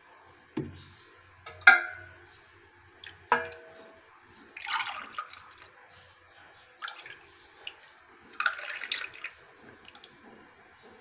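A metal ladle clinks against a steel pot and drinking glasses, the two loudest clinks ringing briefly. Warm milk mixture is then poured from the ladle into a glass twice, short splashy pours.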